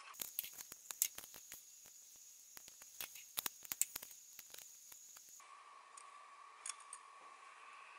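Clear adhesive tape being handled, torn and pressed around a small bar magnet in its holder: a faint run of quick crinkles and clicks for about five seconds, then only a few soft handling clicks.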